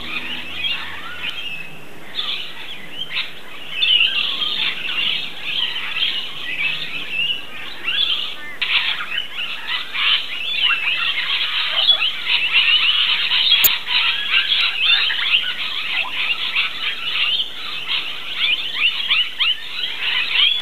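A flock of rainbow lorikeets feeding in flowering eucalyptus: a dense, unbroken chorus of overlapping shrill chattering and screeching calls.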